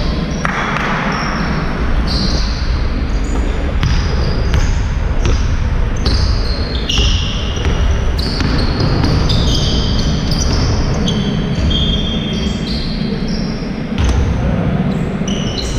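Basketball game sounds in a sports hall: players' sneakers squeaking in short, sometimes sliding chirps on the court floor, and a basketball bouncing, over a steady low hall rumble.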